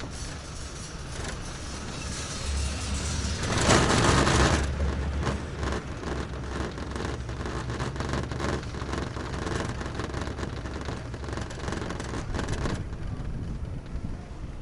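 Taihei Sakudo high-speed quad chairlift running: a mechanical rumble with rapid clattering, swelling to its loudest about four seconds in.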